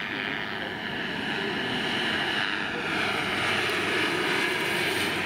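A large scale model Hughes 500 helicopter in flight: its PHT-3 turbine and rotor running steadily, getting louder over the first couple of seconds as it comes nearer.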